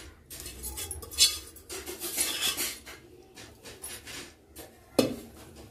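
A spoon scraping and clinking against a cooking pot of thick gravy, in irregular strokes, with one sharp clank about five seconds in.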